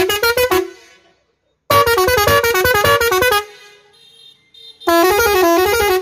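Tractor's newly fitted multi-trumpet musical air horn set playing a quick tune, the notes stepping several times a second. It sounds in three bursts: one stopping about half a second in, one from about two to three and a half seconds, and one starting near the end.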